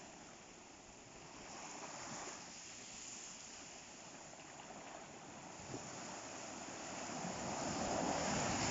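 Ocean waves breaking on the shore, a steady wash of surf with a wave swelling louder near the end.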